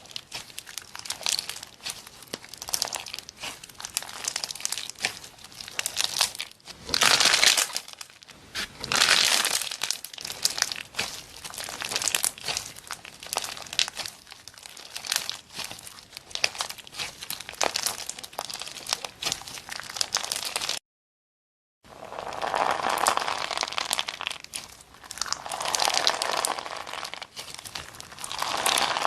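Slime being squished and pressed by hand: dense, irregular crackling and sticky popping clicks that swell louder at times. The sound drops out to total silence for about a second roughly two-thirds of the way through.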